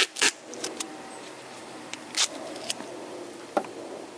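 A few short, sharp rustles and clicks of hands handling things. The loudest comes right at the start, followed by smaller ones spread through the rest.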